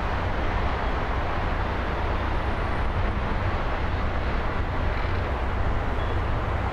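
Steady road traffic noise from cars driving along a wide city boulevard, mostly a low, even hum.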